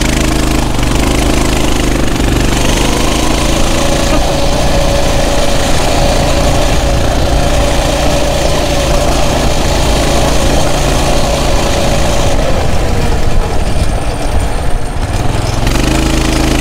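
Coleman CT200U mini bike's 196cc single-cylinder four-stroke engine running while it is ridden. It idles at first, speeds up after a few seconds and holds a steady higher pitch, then drops back to idle near the end.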